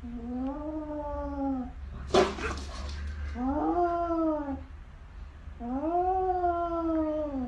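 Fold-eared domestic cat giving three long, drawn-out yowls that rise and fall in pitch, with a sharp hiss about two seconds in. This is a defensive threat display: the cat stands arched and puffed up against its own reflection in a mirror, treating it as a rival cat.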